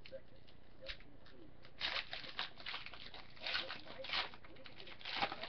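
Foil wrapper of a trading-card pack crinkling and tearing as the pack is opened and the cards handled, in three short bursts of rustling about two, three and a half, and five seconds in.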